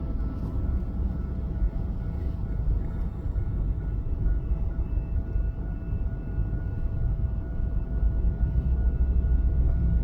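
Steady low rumble with a faint high beeping, about two and a half beeps a second, starting about halfway through: the warning alarm of a railway level crossing.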